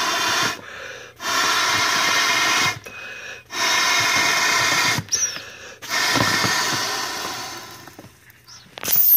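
An inflatable kayak seat bladder being blown up by mouth: four long steady breaths into its valve, with short pauses between them to take in air. A short sharp noise comes right at the end.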